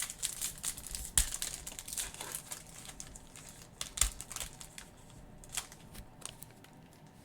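A trading-card pack wrapper being torn open and crinkled, a dense run of crackles with a few sharp snaps that thins out toward the end.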